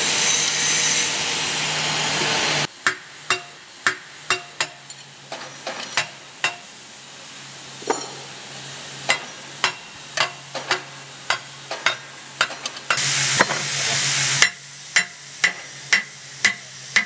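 Irregular sharp metallic taps and knocks, one or two a second, from a copper-headed hammer striking the steel parts of a pneumatic forging hammer during assembly, over a low steady hum. A loud steady hiss covers the first two and a half seconds and comes back for about a second and a half near the end.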